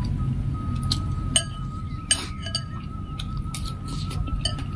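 Metal spoon and fork clinking and scraping against a glass bowl of meatball soup broth, in irregular sharp clinks, the loudest about two seconds in. A faint, thin steady tone runs behind from just after the start.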